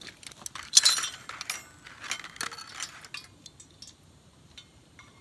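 Camp cookware and utensils clinking and rattling as they are handled, loudest about a second in. The clatter thins to a few light ticks after about three seconds.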